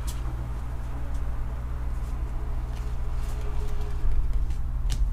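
Pokémon trading cards being handled by hand, with a couple of faint clicks from the cards near the start and near the end, over a steady low hum.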